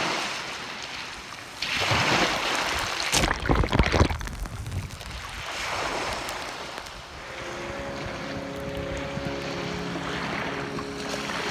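Small sea waves breaking and washing over a wet shore, with two louder surges in the first few seconds, and low rumbling wind on the microphone. Soft held music chords fade in over the second half.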